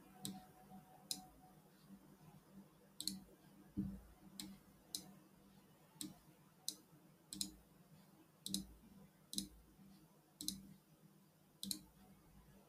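Computer mouse clicking: about a dozen short, sharp, faint clicks at irregular intervals, roughly one every half second to second.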